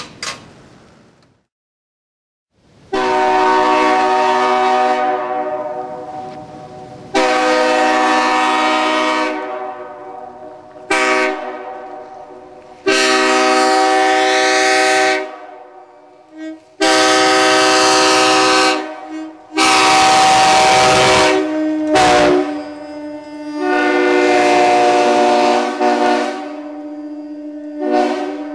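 Nathan K-3L three-chime locomotive air horn with a 1L bell, meant to sound a C, D sharp and F sharp chord, blown in about eight blasts of varying length, some short toots and some held for two to three seconds, several fading off as the air is cut.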